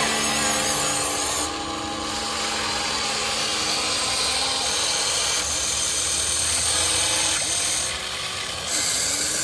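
Small electric motors and gearboxes of a radio-controlled construction model whirring and grinding as it works. The high, whiny part of the sound cuts out about a second and a half in and again briefly near the end as the controls change.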